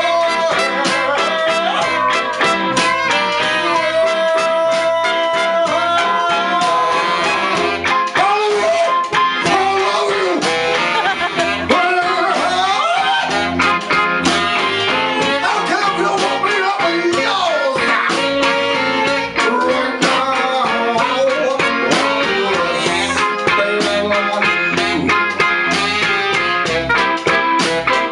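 Live blues band playing, with trumpet, alto saxophone and electric guitar, and a male singer's voice in the middle part.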